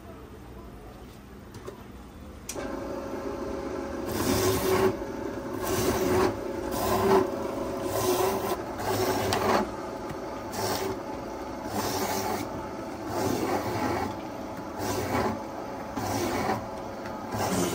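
Rhythmic rasping scrapes, roughly one a second, over a steady hum that starts about two and a half seconds in.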